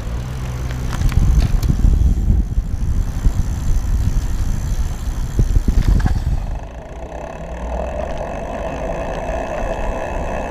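Stromer ST2 electric bike riding on its throttle alone from a standstill: a heavy low rumble of wind and road noise as it picks up speed, giving way about six and a half seconds in to a steadier, lighter hum with a faint even whine.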